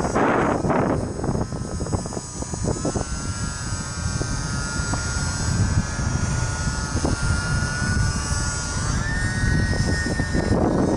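UMX Beast 3D ultra-micro electric RC plane's motor and propeller whining in flight, the pitch stepping up slightly about three seconds in and again about nine seconds in, over heavy wind buffeting on the microphone.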